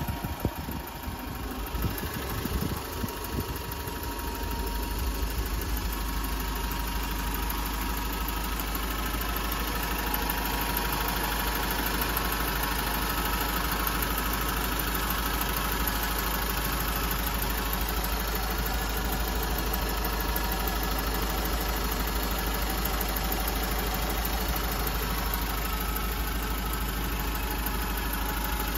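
The 1989 TD2000's engine idling steadily, heard close up through the open bonnet. A few clunks in the first couple of seconds, and the engine grows louder over the first few seconds, then holds even.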